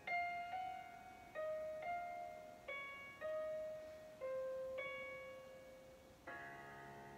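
Closing instrumental bars of a ballad's backing accompaniment: about eight slow single notes, each struck and fading, then a fuller sustained chord near the end.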